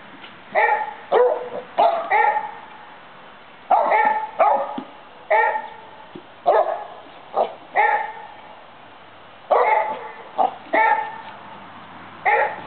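A dog barking repeatedly: sharp single barks and quick pairs or triplets, with pauses of a second or so between the groups.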